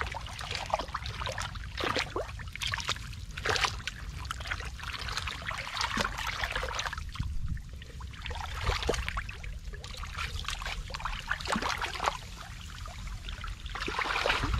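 Hands and legs sloshing and squelching through thick liquid mud, with irregular wet splashes over a low steady rumble.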